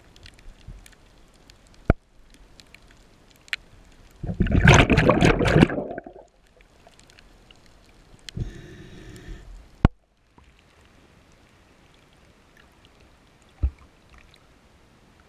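Scuba breathing heard underwater: a loud gush of exhaled bubbles about four seconds in and a shorter regulator inhale hiss about eight seconds in, with a few sharp clicks scattered through; after about ten seconds only a faint steady water hiss remains.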